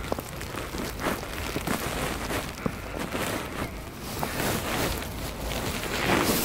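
Footsteps in fresh snow, irregular steps, with wind rumbling on the microphone.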